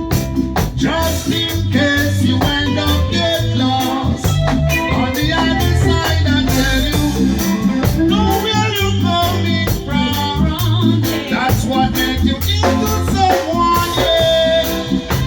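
Live reggae band playing: steady bass and drum groove with shaker, guitar and keyboard, and a voice that may be singing or ad-libbing over it.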